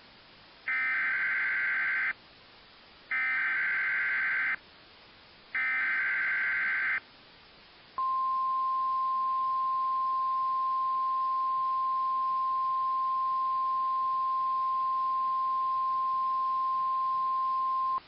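Three short warbling bursts of EAS SAME header data, each about a second and a half long, encoding a Severe Thunderstorm Watch alert. They are followed about a second later by the steady 1050 Hz NOAA Weather Radio warning alarm tone, held for about ten seconds, which turns on weather radios.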